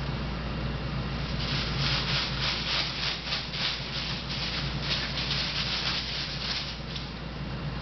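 Crumpled paper ball crinkling and rustling in quick, irregular crackles as a Bengal kitten bites, clutches and kicks at it. The crinkling starts about a second and a half in and dies down near the end.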